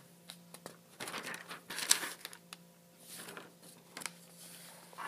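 Paper pages of a spiral notebook being handled and flipped over: rustling and crinkling in a few bursts, loudest about two seconds in, with a few light clicks and knocks.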